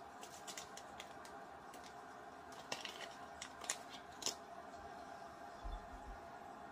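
Crinkling and sharp little clicks of a foil pregnancy-test pouch and a plastic test strip being handled and pulled apart, loudest around the middle. A soft low thump near the end as arms come to rest on the counter.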